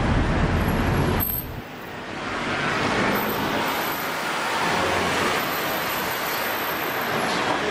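Road traffic passing close by. A vehicle's low engine rumble is loud for the first second or so, then drops away, and the hiss of passing traffic builds back up.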